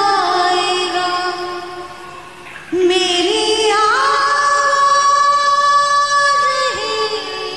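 A woman singing a melody with winding, ornamented notes, then holding one long steady note from about four seconds in until shortly before the end.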